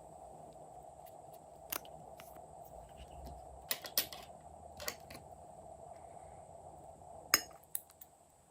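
Glossy slime being worked by hand, giving scattered sharp clicks and pops at irregular moments over a steady faint hum.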